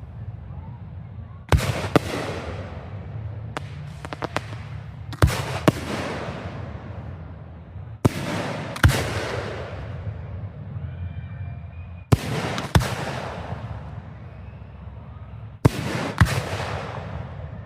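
Aerial fireworks bursting: sharp bangs, mostly in pairs, every three to four seconds, each trailing off in a long rolling echo. A quick run of small crackles comes about four seconds in.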